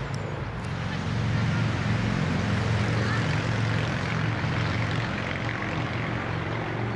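A steady, low engine drone that grows louder about a second in and holds.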